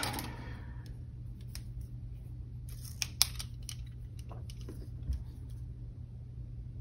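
Small clicks and taps of an X-Acto craft knife and desk supplies being handled, with a quick cluster of sharp clicks about three seconds in, over a low steady hum.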